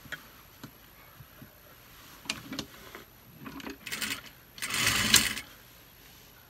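Juki industrial sewing machine stitching in two short runs, about four and five seconds in, the second longer and louder, after a few light clicks and rustling as the satin fabric is positioned under the presser foot.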